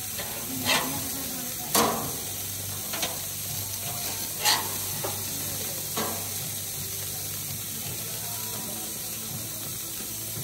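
A metal spatula clacks and scrapes against the grill grates as burgers are flipped, about five sharp clacks over the first six seconds, over the steady sizzle of the patties cooking.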